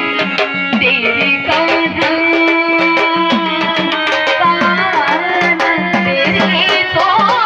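Marathi folk devotional music: tabla strokes keeping a steady rhythm under a sustained melodic instrument line.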